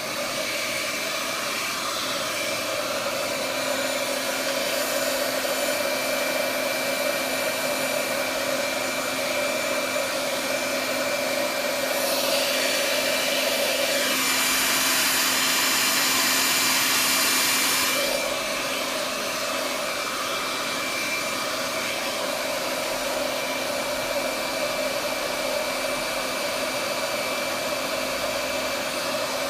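Handheld hair dryer blowing steadily while hair is dried upside down for volume. For about six seconds midway the airflow sound turns brighter and a little louder, then settles back.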